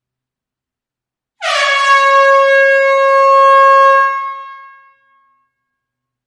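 A single horn blast as a sound effect: one steady, loud pitched tone that starts suddenly, holds for about two and a half seconds, then fades out over about a second.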